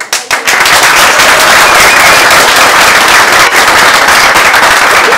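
Audience applauding: many people clapping, breaking out all at once and holding loud and steady.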